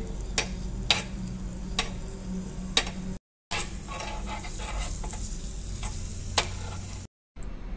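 Crushed garlic sizzling gently in butter and ghee while roasting on a low flame, stirred with a steel spoon that scrapes the small pan and clicks against it now and then. The sound cuts out twice briefly.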